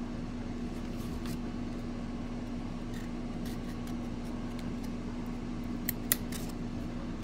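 Light clicks and rubbing of thin cardboard trading cards being prised apart by fingers where two cards are stuck together, with a sharper cluster of clicks about six seconds in. A steady low hum runs underneath.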